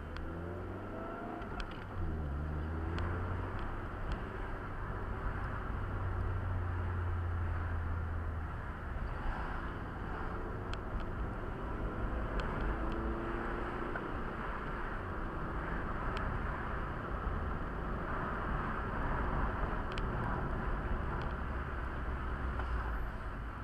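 Car driving, heard from inside the cabin: steady low engine and tyre rumble with road noise, the engine note shifting in pitch with speed, and a few faint ticks now and then.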